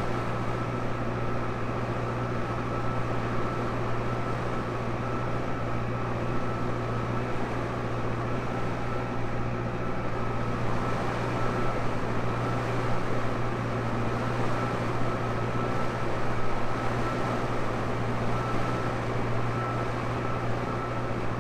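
Tractor engine running steadily, with a low hum and a thin steady whine above it.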